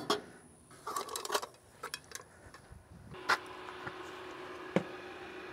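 Scattered light clicks and clinks of camp cookware and a small backpacking stove being handled, with one sharper knock a little past the middle. A faint steady hum comes in about three seconds in.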